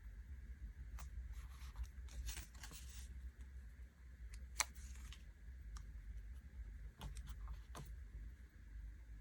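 Faint desk sounds of handling paper stickers on a diary page: scattered soft clicks and a brief rustle, with one sharper click a little past the middle.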